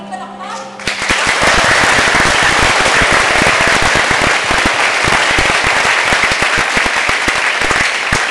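A large crowd breaks into loud, dense applause about a second in, cutting over the last notes of music.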